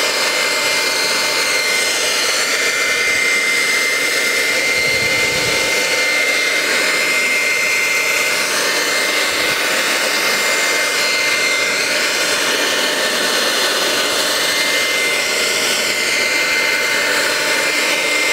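BaByliss hand-held hair dryer running steadily on hot, blowing onto plastic wrap to heat-shrink it around a sneaker: a constant loud rush of air with a steady high motor whine.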